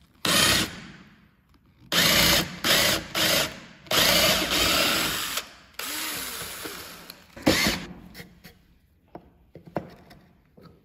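Power drill boring into a softwood board in a series of short bursts, stopping and starting about seven times, with one burst trailing off as the motor spins down. After about eight seconds it stops, leaving only a few light taps.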